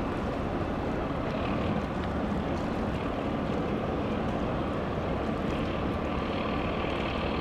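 Boat engines running steadily in the harbour, an even low rumble with a hiss of wind and water and no distinct events.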